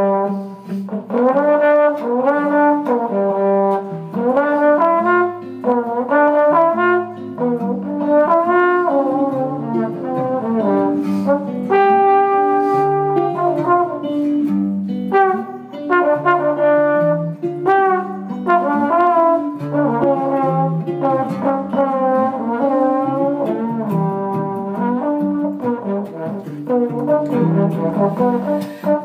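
Small jazz trio of trombone, clarinet and acoustic guitar playing, with the trombone to the fore and notes often sliding into pitch.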